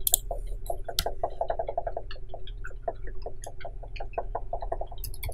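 Rapid light clicking at a computer, about ten clicks a second, over a steady low electrical hum.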